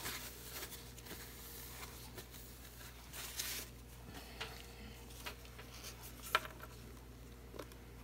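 Faint, quiet handling noise: scattered small clicks and taps, a brief rustle about three seconds in, and a sharper click about six seconds in.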